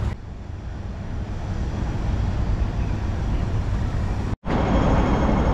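Street traffic noise, a steady rumble of passing vehicles. It drops out for an instant about four seconds in, then carries on.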